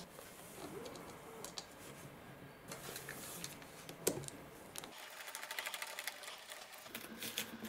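Hand screwdriver turning a screw into the plastic housing of a Bluetooth speaker, with faint handling clicks. There is a sharper click about four seconds in, then a quick run of light, rapid ticks near the end.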